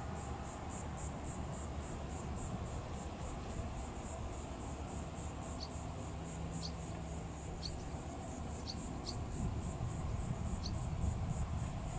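Insects chirping in a steady high pulse, about three a second, with a few short, higher chirps scattered through, over a low background rumble.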